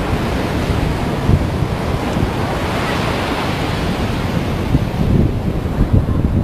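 Heavy surf breaking and washing up a beach, a steady loud rush that swells about midway, with gusty wind buffeting the microphone.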